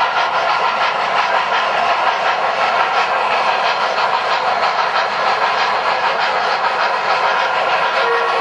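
Several O-gauge model steam trains running at once: a steady, dense clatter of metal wheels on track, mixed with the hiss and chuff of the locomotives' electronic steam sound systems.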